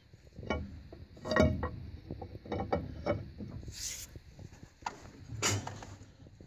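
Irregular metal knocks, clanks and rubbing as a wrench turns the combine's drive by hand, with a louder knock about five and a half seconds in.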